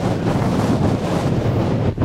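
Strong gusty wind buffeting the microphone, a loud low rumble that dips briefly near the end.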